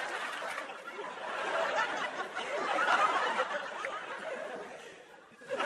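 Large audience laughing, swelling about three seconds in and then dying away almost to quiet about five seconds in.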